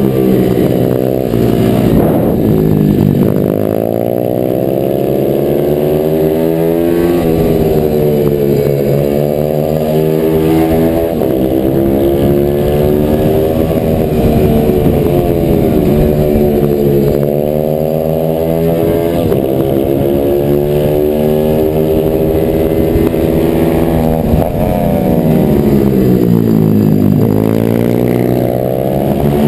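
Racing pit bike's single-cylinder engine heard from onboard at full race pace. It revs up hard on each straight, then the pitch drops sharply as the rider comes off the throttle into the next corner, about five times over.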